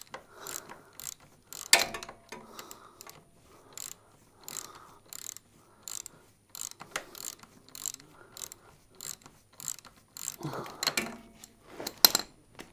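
A 3/8-inch-drive socket ratchet clicking in short, even strokes, about two a second, as it backs the 14 mm nut off a rear suspension bolt. There is a sharper metallic knock a little under two seconds in and another near the end.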